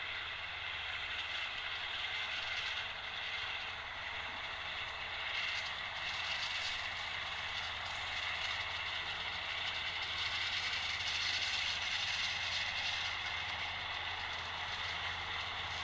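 Tractor with front and side mowers cutting grass, heard from across the field: a steady mechanical drone with a faint thin high tone.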